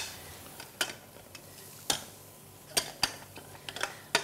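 Metal potato masher knocking against the base of a non-stick saucepan while mashing boiled potatoes: a handful of sharp, irregular clicks about a second apart, coming closer together near the end.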